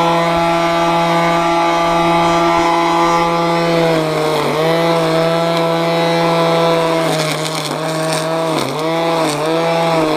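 Ryobi 40-volt cordless single-line string trimmer running with a steady whine. From about four seconds in its pitch dips briefly several times as the line bites into grass, and near the end there is a light crackle of the line striking grass.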